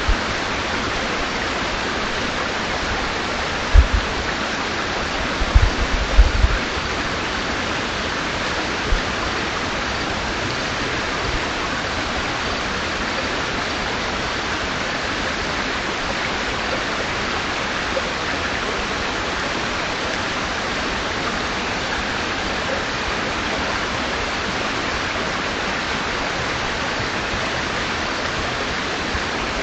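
River water rushing steadily. A few brief low thumps sound about four to seven seconds in, with one more shortly after.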